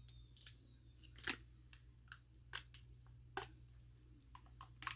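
Thin plastic film being peeled and handled: quiet, irregular crinkles and clicks, the loudest a little over a second in.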